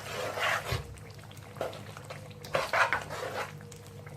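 A spoon stirring and scraping thick minced-meat and potato curry around a pan, in irregular strokes, over a faint steady hum.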